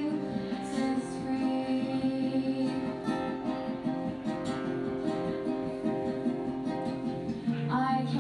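Live folk song: strummed acoustic guitar under singing, with a voice sliding up into a new line near the end.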